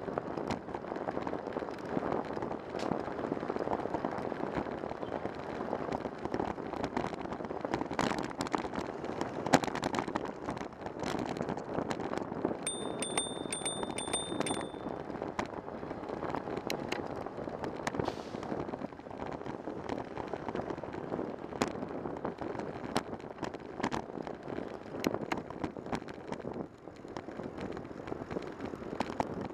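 Riding a bicycle in city traffic, heard from a bike-mounted camera: steady road and tyre rumble with wind on the microphone and many sharp clicks and rattles over bumps. Near the middle, a high trilling ring lasts about two seconds.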